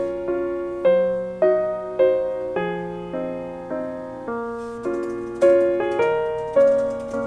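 Background music: a gentle piano-style keyboard melody, notes and chords struck about twice a second and each fading away.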